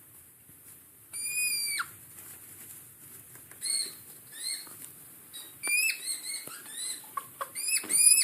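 Hedgehog giving a series of high-pitched, whistle-like squeaks: about nine calls, the first held and then dropping in pitch at the end, the rest shorter and quicker, crowding together near the end.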